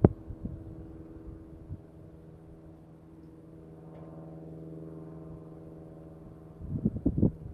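Wind buffeting the microphone in gusts, strongest near the end, over a steady low hum.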